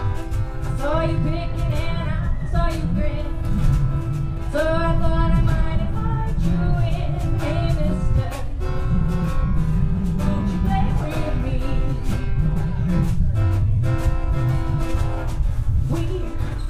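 A small acoustic band playing a song live: strummed acoustic guitar and plucked upright bass under a sung melody.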